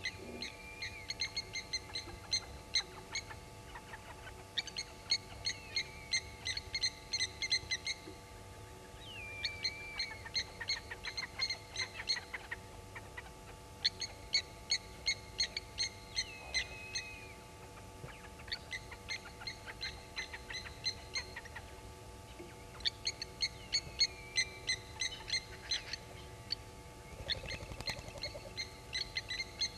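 Blacksmith lapwings giving their metallic 'tink-tink' alarm calls in rapid bouts of a few seconds each, about seven bouts in all, with a few short falling notes between them. The calls are the lapwings mobbing an African harrier hawk on the ground near them.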